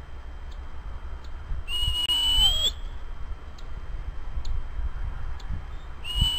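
A high, steady whistle sounded to call a dog: one long note about two seconds in, lasting about a second and rising slightly at its end, and a second long note starting near the end.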